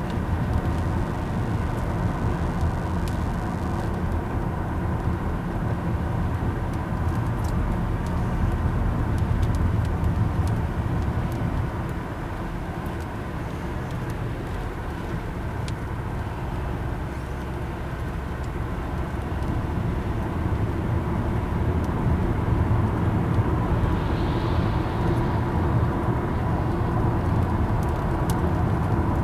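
Steady road noise inside a moving car: engine drone and tyre rumble, easing off partway through as the car slows, then building again.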